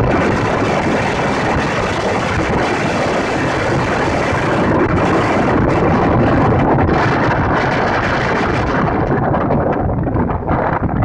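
Strong wind buffeting the microphone over the rush of rough surf breaking on the beach, one loud continuous roar; the hiss thins out near the end. Heard through grainy 8-bit audio.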